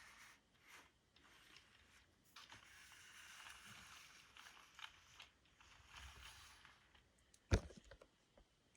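Plastic LEGO bricks being handled: a soft rustle of pieces being sorted, small clicks, and one sharp snap of a brick near the end.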